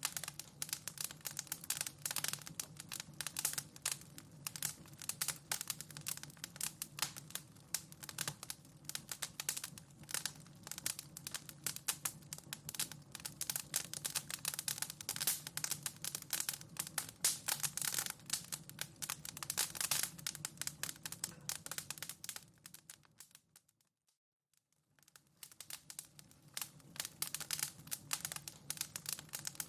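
Wood fire in a home fireplace crackling, with dense irregular pops and snaps over a low steady rumble. About 23 seconds in, the crackling fades away to near silence for a second or two and then fades back in, the seam where the looped fire recording restarts.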